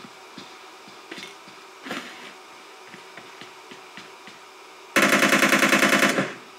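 Faint clicks and light tapping, then about five seconds in a sudden, very loud burst of rapid, evenly spaced bangs, about eleven a second, lasting just over a second before dying away.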